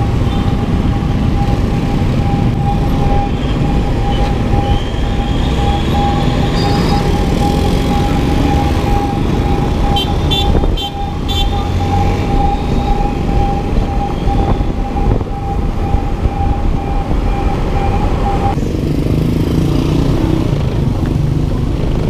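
Motorcycle engine running on the move through city traffic, with a dense low rumble and a steady high tone that cuts off suddenly about eighteen seconds in.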